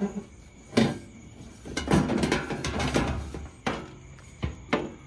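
Plastic clicks and knocks, with a longer scraping rustle about two seconds in: a Jeep Wrangler JK's plastic cowl panel being handled and worked loose.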